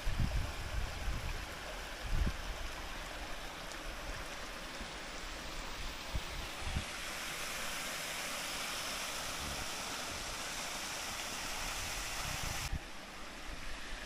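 Stream water running over rocks below a concrete dam, a steady rushing wash. It gets louder and hissier about halfway through, where water spills from the dam's base, then drops off suddenly near the end. A few low thumps come in the first couple of seconds.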